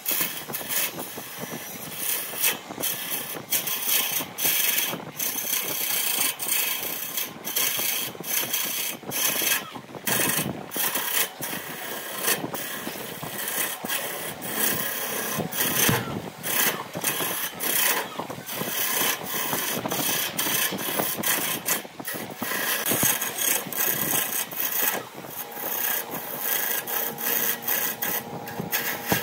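A turning tool cutting into a spinning wood blank on a lathe: a rough scraping hiss as shavings come off in uneven, rapidly repeated passes, over the running lathe.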